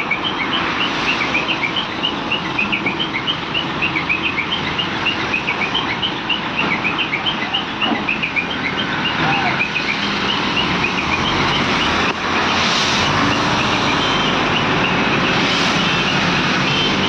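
Diesel engines of ACE hydra cranes running under load while lifting a steel tank, the sound getting steadier and a little louder about two-thirds of the way in. Birds chirp rapidly over the first two-thirds.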